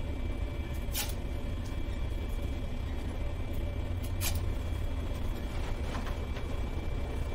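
Steady low rumble of room background noise with faint steady high tones, broken by two short sharp clicks, about a second and about four seconds in, and a few fainter ticks near the end.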